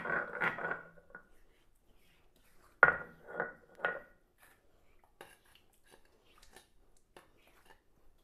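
Stainless steel bowl clattering and knocking against a stone grinding slab as ground garlic paste is gathered into it. There is a burst of clatter at the start, then three sharp ringing knocks about half a second apart around three seconds in, then a few faint taps.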